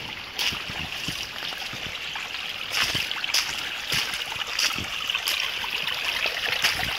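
Small shallow jungle stream trickling and splashing over rocks, a steady rush of water. Several short knocks sound over it at uneven intervals.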